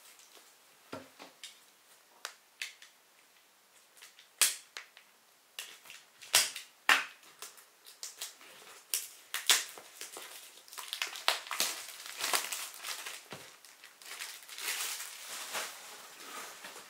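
A small retail product box being handled and opened by hand: scattered sharp clicks and cracks, then a denser run of crackling over the last few seconds.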